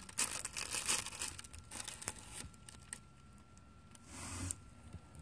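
Thin plastic bag crinkling and crackling as the rat snake writhes on the glue trap and a hand shifts the bag, busiest in the first couple of seconds. A short rustle comes about four seconds in.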